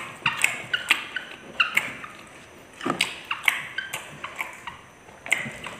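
Eating sounds from people eating with their hands: wet lip smacks and chewing, heard as irregular short moist clicks.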